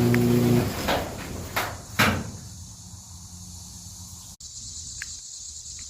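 Garage door opener's motor hum cuts off about half a second in, followed by three clunks over the next second and a half as the door comes to rest at the end of its travel. Crickets chirp steadily after that.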